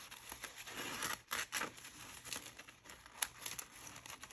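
Construction paper rustling and crinkling as a thin paper strip is pushed and pulled through slits in a paper cutout, in short scratchy scrapes, with a denser rustle a little over a second in and a sharper tick about three seconds in.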